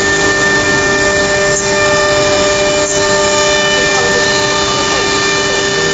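Philicam F4 1325 CNC router running, its spindle machining a panel: a loud, steady whine of several tones over a constant rushing machine noise.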